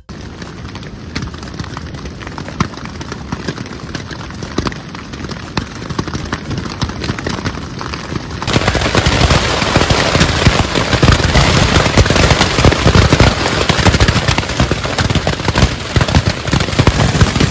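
Hailstorm: a dense, continuous rattle of hailstones hitting the forest ground and tents. About eight seconds in it turns abruptly louder and fuller, with hail pelting a nylon tarp overhead.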